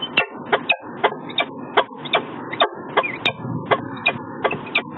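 A falcon calling off-camera: a run of sharp, harsh notes repeated about two or three times a second.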